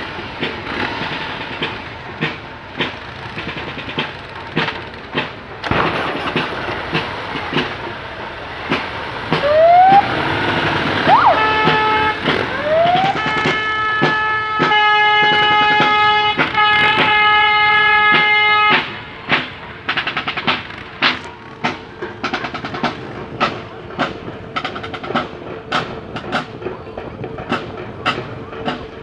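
Parade sounds: a marching drum beats steadily all through. About ten seconds in, police motorcycle sirens whoop upward a few times, followed by a long, held horn blast with brief breaks lasting about five seconds.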